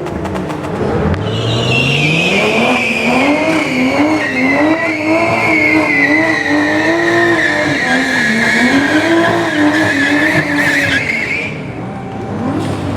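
Toyota GR Supra's B58 turbo inline-six revving up, then held high with the throttle rising and falling, while the tyres squeal through a drift. The squeal starts about a second in and stops shortly before the end.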